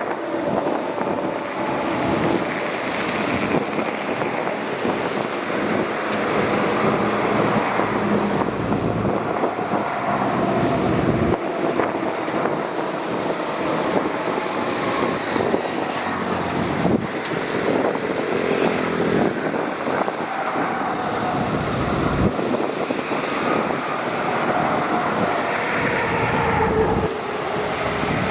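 SHANTUI DH17C2 bulldozer's diesel engine running under load while pushing sand, its note swelling and easing as the load changes, with a few short knocks.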